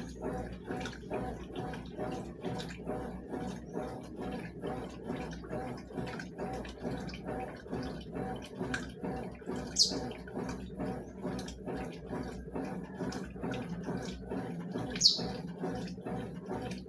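Consul CWS 12 top-loading washing machine on its rinse cycle, the agitator swishing sheets back and forth through the water in an even, repeating rhythm. Two short high chirps cut through, about ten and fifteen seconds in.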